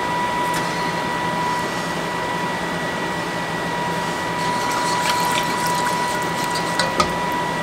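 Green chili enchilada sauce being stirred in a pan on the stove: a steady liquid hiss with a faint high hum underneath, and a few light clicks of the utensil against the pan in the latter half.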